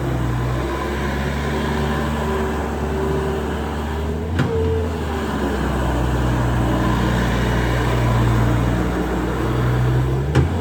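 Bobcat S550 skid steer's turbo diesel engine running steadily, its pitch shifting slightly as the load changes, with a short knock about four seconds in and a louder one near the end.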